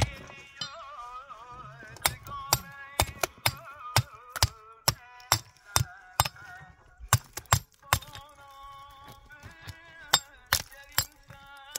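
Hammer striking a limestone block, a run of sharp, irregular clinks roughly two a second as the stone is chipped and trimmed to shape, with a short pause about eight seconds in. Background music plays under the strikes.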